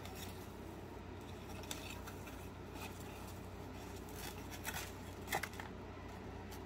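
Dry sphagnum moss and leaves of a bare-root plant rustling and crackling in the hands, in several short crackles, the sharpest about five seconds in, over a steady low hum.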